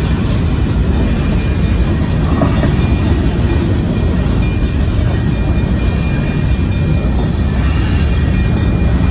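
Covered hopper cars of a freight grain train rolling past at a grade crossing: a steady, loud rumble of steel wheels on rail.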